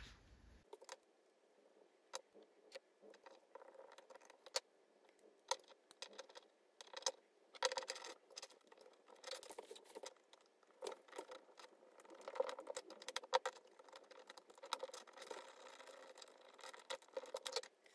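Small aluminium and brass parts and steel screws clicking and knocking as they are handled and fitted together by hand, with a small hex screwdriver working a screw in near the end. Faint, irregular clicks, busier in the second half.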